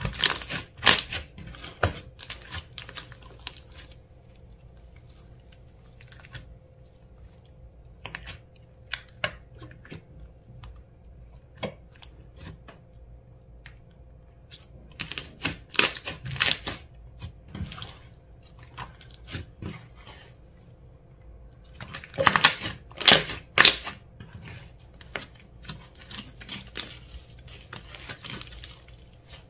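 Hands squishing and stretching slime, giving bursts of sharp wet clicks and crackles every few seconds, loudest about three-quarters of the way in.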